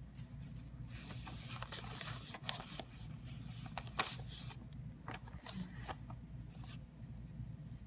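Yarn rustling and a crochet hook scraping as hands work a crochet chain, in irregular brushing strokes with a couple of sharper clicks, the loudest about four seconds in.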